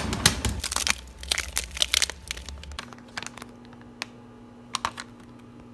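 Packaging crinkling and crumpling as it is handled, with a dense run of sharp crackles for the first half and then a few scattered clicks.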